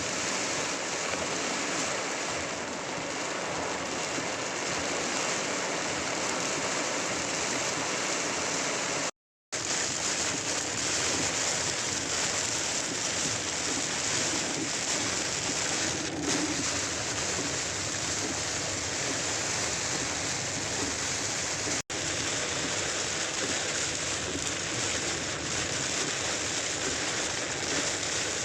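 Steady rushing noise of a heavy rainstorm and running water. It is broken twice by short drops to silence, about nine seconds in and again near twenty-two seconds.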